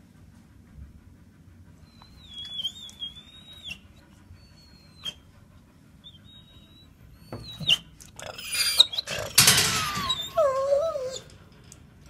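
Shelter dogs in their kennels whining in high, wavering tones, then a louder, noisier outburst about eight seconds in that ends in lower, wavering whimpers.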